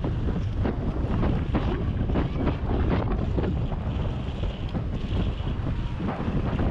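Wind buffeting the microphone of a camera on a moving bicycle: a loud, continuous low rumble with gusty flutter.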